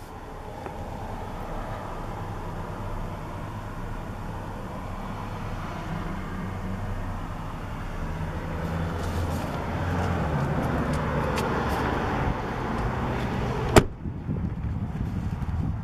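Steady vehicle engine hum that grows louder over the first ten seconds, then the pickup's door slams shut once, sharply, near the end.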